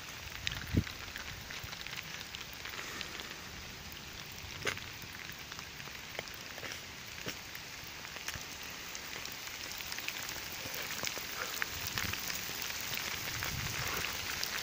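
Heavy rain falling steadily on a wet asphalt road, with many sharp ticks of single drops and a low thump just under a second in. The rain grows a little louder in the second half.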